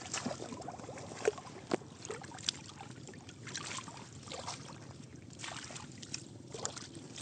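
Shallow water in a flooded rice field sloshing and splashing in small irregular splashes as someone moves and reaches through it.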